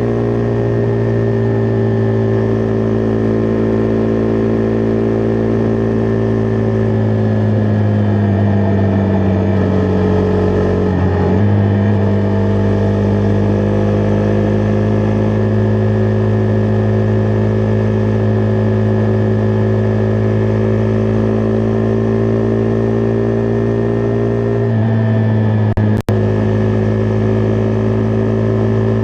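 Husqvarna Vitpilen 401's single-cylinder engine running under way at a steady pitch. About seven seconds in the engine note sags for a few seconds, then jumps back up about eleven seconds in, as with a gear change; it shifts again near the end, with a short sharp click just after.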